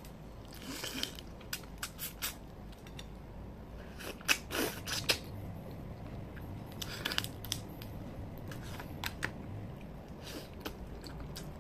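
Cooked crab shells being cracked and pulled apart by hand, with sharp clicks and snaps throughout and a few louder crunches about four to five seconds in and again around seven seconds.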